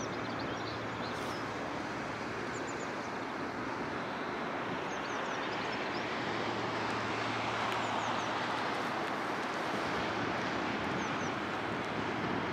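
Steady outdoor background rush with a faint low hum in places, and small birds chirping briefly several times.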